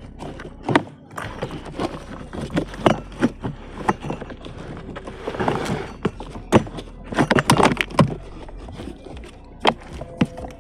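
Irregular knocks, clicks and rustling from parts and tools being handled during repair work inside a car's dashboard, with a burst of scraping about five seconds in.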